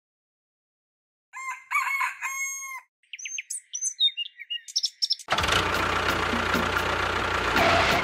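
A rooster crowing, then small birds chirping, after a moment of silence. About five seconds in, a steady, louder hum takes over.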